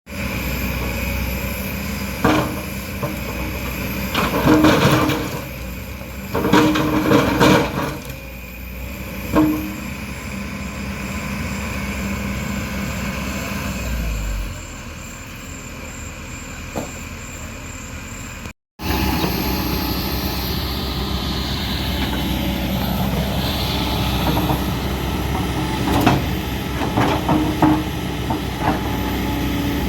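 Diesel engine of heavy earthmoving machinery (backhoe loader/excavator) running steadily, with several loud clanking, scraping bursts in the first third as the bucket works the hillside. The sound cuts out briefly about two-thirds through.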